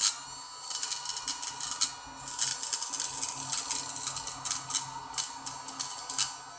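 Mini USB vacuum cleaner's small electric motor running with a steady hum, overlaid by frequent irregular clicks and crackles.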